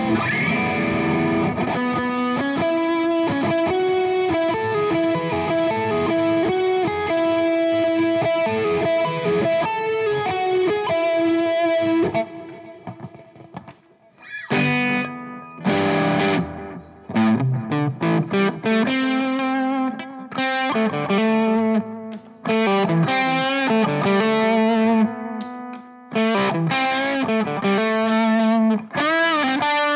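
Electric guitar through a Boss GT-1000 multi-effects processor: a distorted lead line of held notes on the "Shred Lead" preset, dying away about twelve seconds in. It then switches to a crunch-distorted rhythm riff of short chords broken by stops on the "Crunched" preset.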